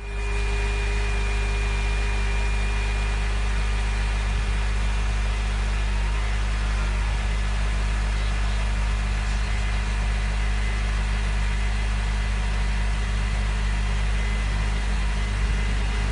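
2004 Honda Odyssey RB1 with its engine running steadily and the power-steering pump making an abnormal whine, a thin high tone over the engine's low hum. This pump noise is typical of the RB1 Odyssey, and it persists after the fluid has been changed and topped up: the pump is due for replacement.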